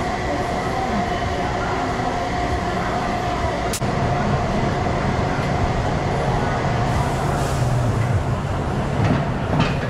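Steady mechanical running noise of tire-shop machinery, with a sharp click about four seconds in, after which a deeper hum comes up.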